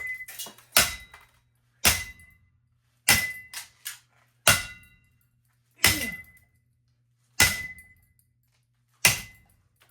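A ceiling fan being struck hard over and over, about seven heavy blows roughly a second and a half apart, each a sharp clang with a brief metallic ring.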